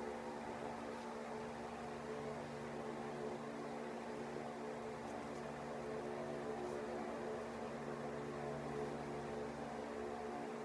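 Steady machine hum with several fixed pitches over a light hiss; a low band in it comes and goes a few times.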